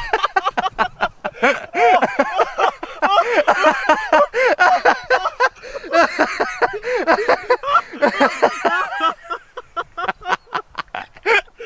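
Several people's excited voices, laughing and exclaiming without clear words, right after a firecracker blast, with scattered clicks and knocks mixed in, thickest near the end.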